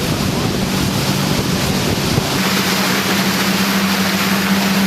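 Tour boat's engine running with a steady hum, under wind on the microphone and rushing water. About two seconds in, the deep rumble drops away and the hiss grows brighter.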